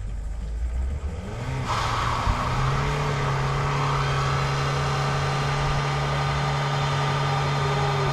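Car engine idling, then revving up about two seconds in and held at steady high revs while the tyres spin in a burnout, with a loud squealing hiss of burning rubber.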